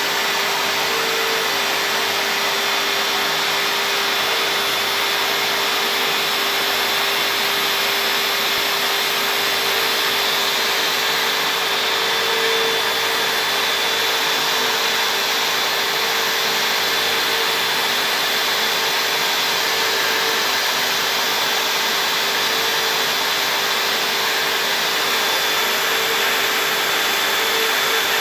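Small CNC router spindle running at a steady high speed while its bit carves lettering into a board, a constant whine over the rushing of dust-extraction suction at the bit.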